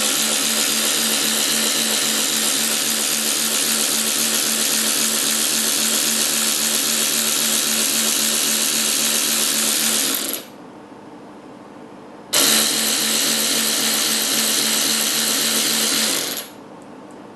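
Silvel 12V cordless electric ratchet wrench running with its trigger held: a steady motor-and-gear whir for about ten seconds, stopping, then a second run of about four seconds.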